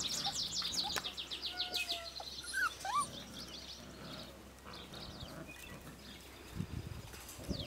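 Songbirds singing outdoors: a fast, high trill of evenly repeated notes for the first two seconds, then a few scattered short chirps and whistled calls.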